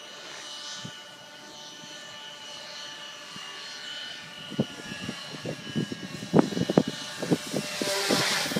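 Stingray collective-pitch 3D quadcopter flying, its rotors making a steady whine that grows into a loud rushing hiss as it swoops in low and close near the end. Irregular low thumps join in from about four and a half seconds in.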